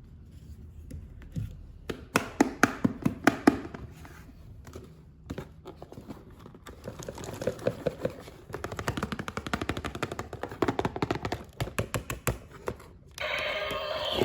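Rapid runs of plastic clicks and taps from toy figures and their packaging being handled during an unboxing, coming in clusters with short pauses. Background music comes in about a second before the end.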